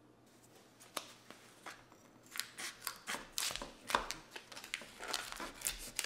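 Kitchen scissors snipping through a vacuum-sealed plastic bacon package: a run of sharp snips with plastic crinkling. It starts about a second in and comes thicker from about two seconds in.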